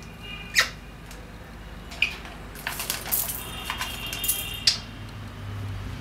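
African grey parrot squeaking, clicking and whistling: a sharp falling squeak about half a second in, a short chirp at two seconds, then a run of clicks and steady high whistled notes that ends in another sharp falling squeak.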